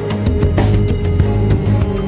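Dramatic TV news theme music, with a deep sustained bass under held tones and quick percussive hits.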